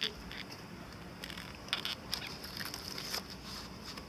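Cardboard packing on a solar panel crinkling and knocking as it is lifted and handled, a handful of short clicks and crackles over a steady high-pitched background hiss.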